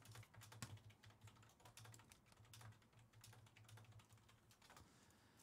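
Faint typing on a computer keyboard: a quick, irregular stream of light key clicks.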